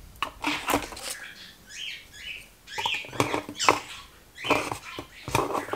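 Model airplane parts being slid into the slots of a foam board storage box: a string of short squeaks, scrapes and light rustles at irregular moments.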